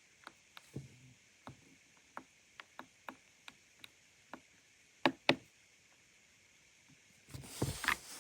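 Individual keystrokes on an Ajazz AK820 Pro gasket-mount mechanical keyboard, about a dozen separate clicks at an uneven pace with two louder ones about five seconds in. A denser, louder clatter of keys starts near the end.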